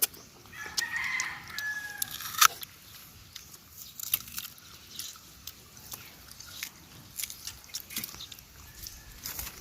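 Crisp biting and chewing of raw green mango: a string of sharp crunches and clicks. A rooster crows once, about a second in.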